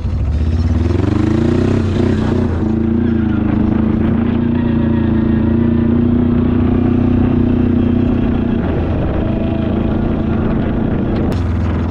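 Arctic Cat diesel ATV engine running under way. It revs up over the first couple of seconds, holds a steady drone, and eases off about two-thirds of the way through, with a single sharp click near the end.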